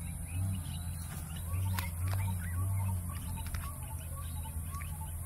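Outdoor ambience: scattered short bird chirps over a steady high hiss and a low rumble that swells and fades, with a few sharp clicks.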